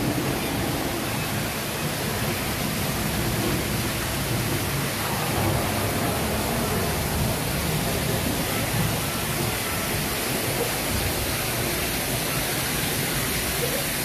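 Steady rush of falling water from an artificial rainforest waterfall, an even hiss that does not let up.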